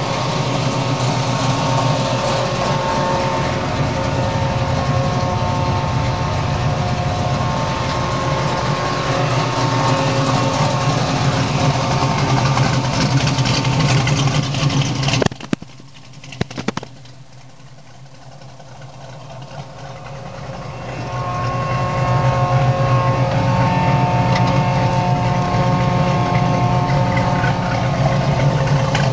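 A 502 big-block V8 engine running steadily at an even pitch. About halfway through the sound cuts off abruptly, a couple of sharp clicks follow, and then the engine sound swells back up over a few seconds and runs steadily again.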